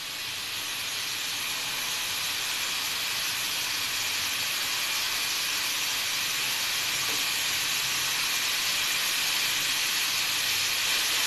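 Stovetop aluminium pressure cooker hissing steam from its weight valve between whistles. The hiss grows steadily louder as pressure builds toward the next whistle.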